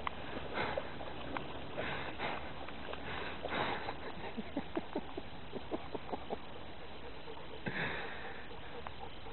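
A dog wading through shallow pond water, its movements making small splashes, with a run of quick little splashes at about four a second in the middle. Near the end comes a short sniff up close.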